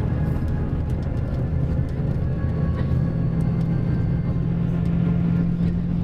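Mercedes-Benz OM-457LA inline-six turbodiesel of a Busscar Panorâmico double-decker bus running steadily under way, a low drone whose pitch shifts slightly about three seconds in. The uploader says the engine's wear can be heard after nearly seven years and over two million kilometres.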